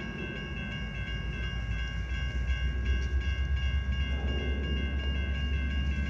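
CSX SD70MAC diesel-electric locomotive approaching at the head of a freight train: a low engine rumble that grows slowly louder. A steady high-pitched ringing tone sits over it.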